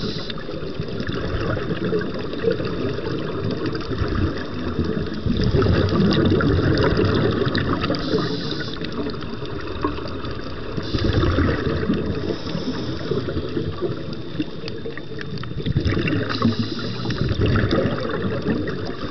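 Underwater sound of a scuba diver breathing through a regulator, with louder surges of exhaled bubbles about every five seconds.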